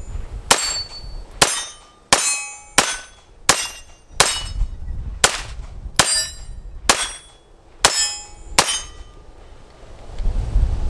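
Tanfoglio Defiant Stock Master 9mm pistol fired about a dozen times in slow, steady succession, roughly one shot every half second to a second, with a short metallic ring after the shots from hits on steel targets. The shooting stops near the end, leaving wind rumbling on the microphone.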